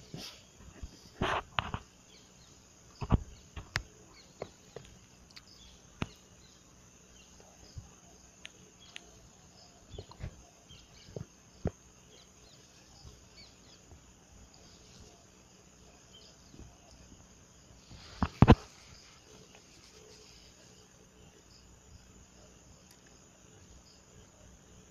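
Faint insects chirping in the background, with scattered short clicks and knocks and a loud double knock about eighteen seconds in.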